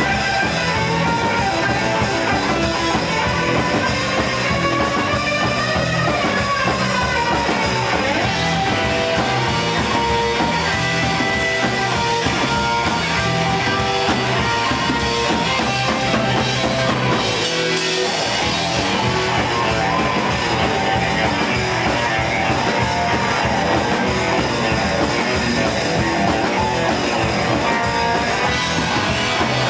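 Live band playing rock: electric guitar, upright bass and drum kit. The lowest notes drop out for a moment just past halfway.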